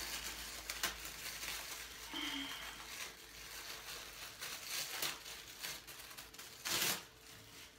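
Plastic packaging crinkling and rustling as a mini tripod is unwrapped and handled, with a few sharp handling clicks, the strongest near the end.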